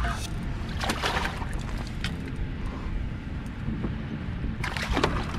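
Wind rumbling on the microphone with water lapping against a kayak's hull and a seawall, with a few short louder splashes of water, about a second in and near the end.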